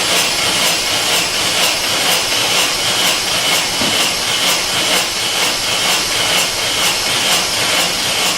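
Loud, steady hiss of air escaping at a leaking connector on an engine compression-test rig, with a regular pulse about three times a second.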